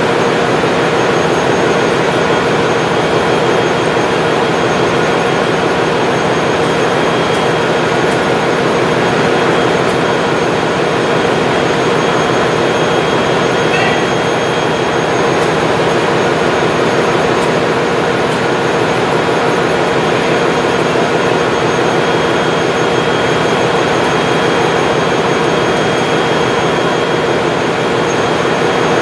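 Ship's engine-room machinery running: a loud, steady drone with a few constant whining tones on top.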